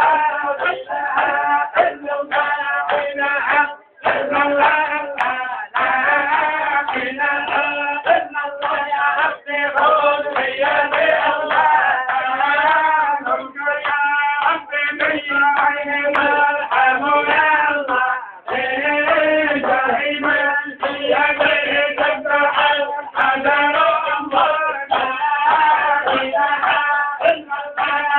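Men's voices singing to music, with a steady run of short percussive strikes underneath.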